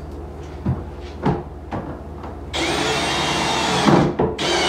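Cordless drill driving a screw through the back of a vanity cabinet into a wall stud. A few light knocks come first, then the motor runs steadily from about two and a half seconds in, its pitch rising and then holding. It stops briefly near the end and starts again.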